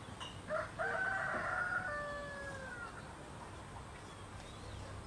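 A rooster crowing once: a short opening note, then a long held call of about two seconds that falls away at its end.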